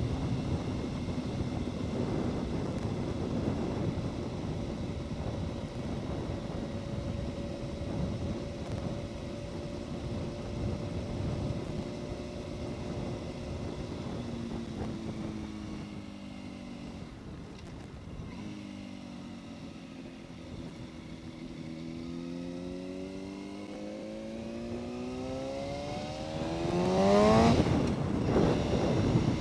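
Yamaha R1 inline-four engine riding along at a steady pitch, then easing off so the revs fall about halfway through. Near the end it accelerates hard, the revs climbing steeply to a loud peak, dropping briefly at a gear change and climbing again.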